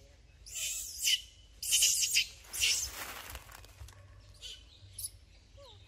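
A person making several short hissing 'sss' calls, the 'sa' sound used to call monkeys, each a brief sharp hiss.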